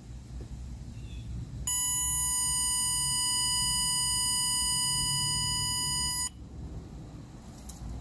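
Power Probe circuit tester's built-in speaker giving one steady, high beep tone for about four and a half seconds, starting a couple of seconds in and cutting off suddenly, while the probe tip is held on a mirror switch contact.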